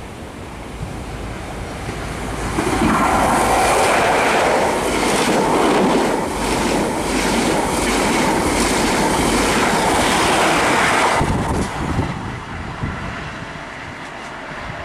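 Diesel multiple unit passing close at speed, wheels clattering over the rail joints in a quick repeating beat. The sound stops suddenly about two-thirds of the way in, leaving wind on the microphone.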